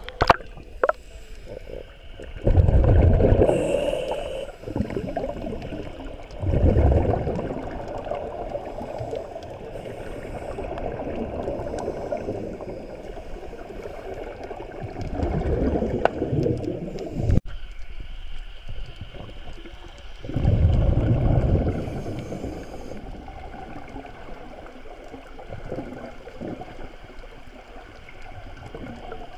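Scuba regulator exhaust heard underwater: a gurgling burst of bubbles with each exhale, four of them several seconds apart, with a faint steady hiss between.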